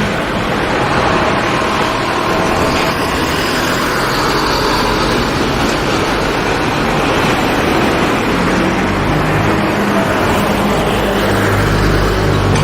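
Container freight train's wagons rolling past in a steady rumble. A low engine drone joins about nine seconds in and grows louder toward the end.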